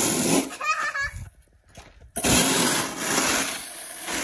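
Snow shovels scraping wet, heavy snow across concrete, in two long strokes with a short pause between. The snow is wet and sticks to the cement, so the blades grind along the pavement.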